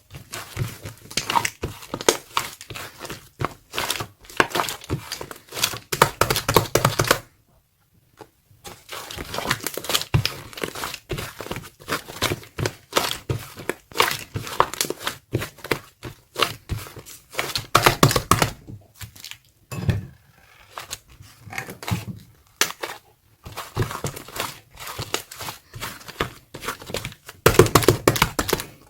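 Thick, sticky white clay slime being squished, stretched and pressed by hand, making dense runs of wet clicks and crackly pops, with a brief pause about seven seconds in.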